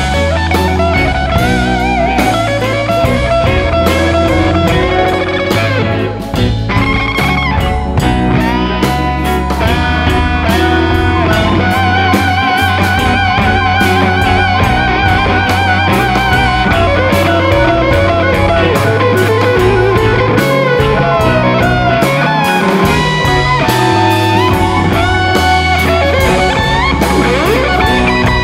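Background music: a blues-rock track led by electric guitar over a bass line.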